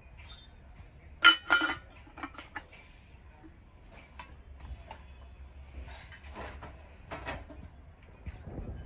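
Metal kitchenware clinking and clanking as it is handled and set down, with two loud clanks just over a second in and lighter clinks after, some ringing briefly.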